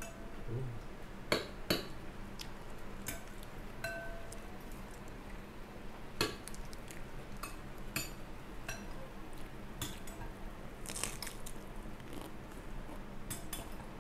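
Scattered clinks and taps of spoons and dishes on a table as people eat, with about ten short sharp knocks over the stretch.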